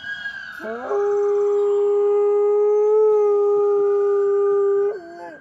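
A dog howls one long held note that slides up at the start, stays steady for about four seconds, then drops and breaks off near the end.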